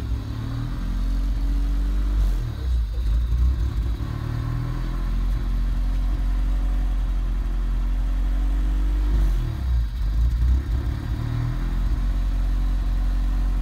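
Honda B20 four-cylinder running through a 2.25-inch DC header, test pipe and Yonaka exhaust, heard at the tailpipe: a steady idle with brief throttle blips about two and a half seconds in and again around nine to ten seconds.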